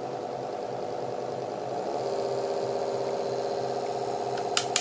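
Small brushed DC hobby motor running on a low-voltage bench power supply: a steady motor whine with a high brush hiss. About two seconds in its tone shifts and it gets slightly louder. Two short sharp clicks come near the end.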